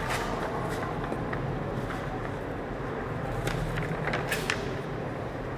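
Steady background noise with a low hum, and a few faint clicks, a small cluster of them about four seconds in.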